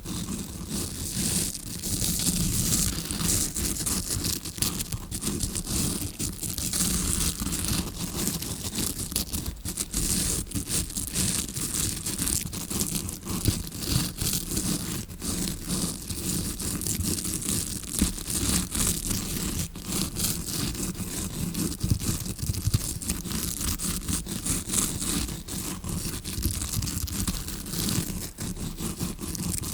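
A tawashi scrubbing brush scratching right against the microphone in dense, rapid, uneven strokes, a continuous close-up scraping and rustling that imitates ear cleaning heard from inside the ear canal.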